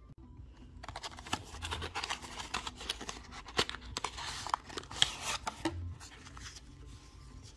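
Paperboard trading-card deck box handled and opened, with rustling, scraping and sharp clicks as a stack of cards is slid out of it. Starts about a second in and settles after about six seconds.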